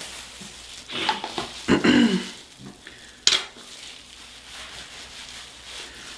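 Hair dye being massaged by hand into the scalp and locs, a wet squishing. There are two short voice-like sounds in the first two seconds and a sharp click a little after three seconds.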